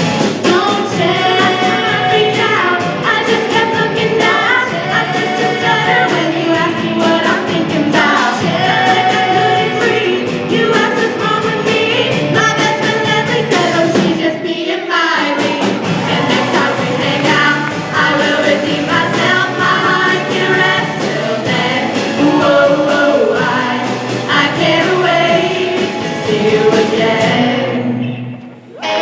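Music: a group of voices singing together, with a short break about halfway through and a brief drop shortly before the end.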